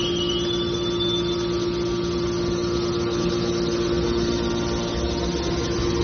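Hydraulic metal baler running: a steady machine hum with a strong constant tone. A high whine that has just risen in pitch holds briefly near the start, then fades.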